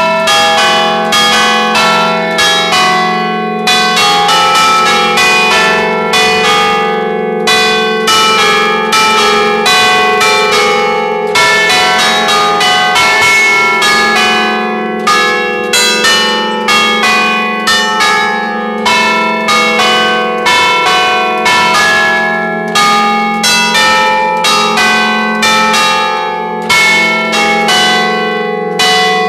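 A set of five church bells ringing close at hand, several strokes a second at different pitches overlapping, the lower bells humming on steadily beneath the strokes.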